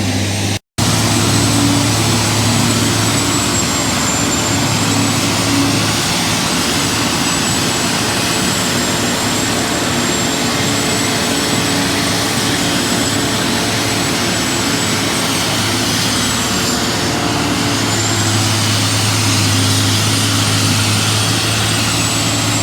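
A semi-mounted Haybuster tub grinder running: a loud, steady mechanical din with a thin high whine above it.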